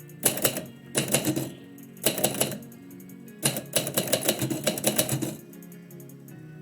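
Typewriter keys striking in quick runs of typing, four bursts with short pauses between them, the last and longest about three and a half seconds in. Background music with steady sustained tones runs underneath.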